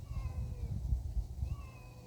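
Two drawn-out animal calls, each slightly falling in pitch and under a second long: one at the start and one about a second and a half in. A steady low rumble runs beneath them.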